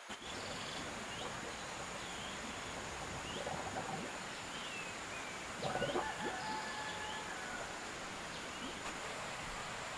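Rural outdoor ambience with small birds chirping every second or so and a faint steady high tone. About six seconds in comes a longer, held bird call of about a second and a half, the loudest sound here.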